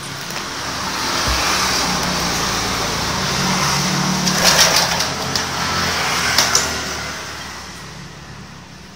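Honda GX160 single-cylinder engine, rope-started at the flywheel pulley, catching and running for several seconds before fading away and dying. It almost starts but won't keep running, which the owner puts down to ignition timing set too far advanced on its new CDI.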